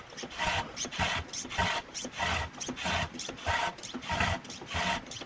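Hand-operated fluid pump being worked in rhythmic rasping strokes, about two a second, pumping gear oil into a rear differential; the pump is drawing in air along with the oil.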